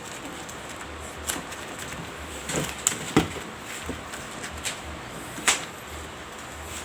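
Electrical tape being wrapped around a cut live wire by hand: scattered short snaps and rustles of the tape and fingers, the sharpest a few seconds in and again near the end.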